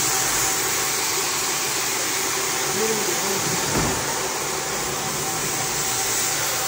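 Steady rushing noise from rug-washing equipment working on a rug, with a single knock a little under four seconds in.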